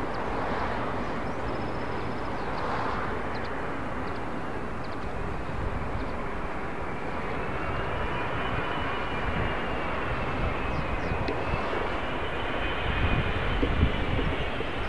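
Airbus A380 jet engines on landing approach: a steady jet rumble, with a high, slightly wavering engine whine that comes in about halfway and holds. A few low thumps near the end.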